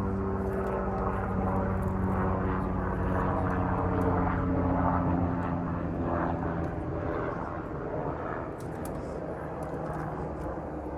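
Steady droning of a distant engine, fading away after about seven seconds.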